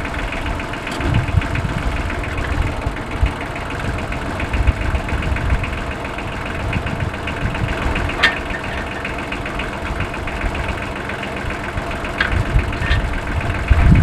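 Tractor engine running steadily at low speed, with a few sharp metallic clicks about eight seconds in and again near the end.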